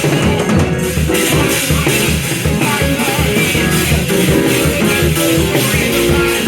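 Live church band music: guitar with bass notes over percussion keeping a steady, even beat.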